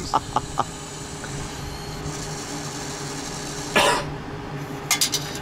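Steady low hum of a pizza vending machine running. There are a few clicks at the start, a brief sharp noise about four seconds in, and a quick run of clicks near the end.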